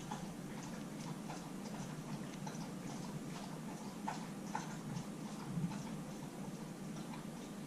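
Scattered light clicks and taps at irregular spacing, over a steady low hum.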